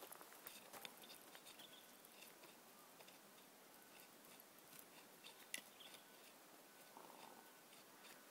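Near silence: faint hiss with scattered soft clicks and ticks, and one sharper click about five and a half seconds in.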